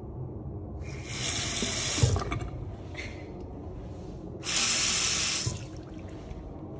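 Water from a sink faucet running into the basin in two short spells, one about a second in and one near the middle, each stopping after a second or so.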